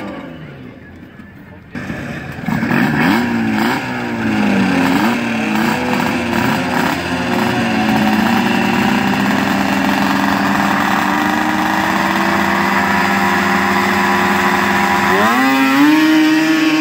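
Two-stroke racing snowmobile engines, an Arctic Cat among them. An engine comes in suddenly about two seconds in and is blipped up and down, then the engines hold a steady pitch. Near the end they rise sharply in pitch as the sleds launch.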